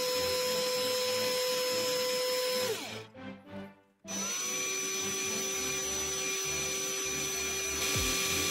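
Cordless drill motor running steadily at a low speed, turning a small lure body in its chuck. It winds down and stops about two and a half seconds in. About a second later it starts again and settles at a slightly lower pitch.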